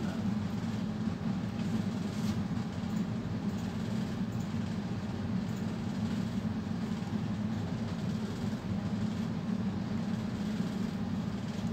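Steady low hum or rumble of background machine noise, unchanging throughout, with a few faint light ticks now and then.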